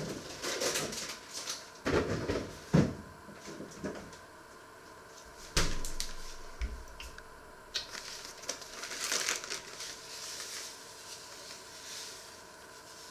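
Kitchen handling sounds: a few knocks and a sharp click, then a plastic bag rustling for a few seconds as its contents are shaken out.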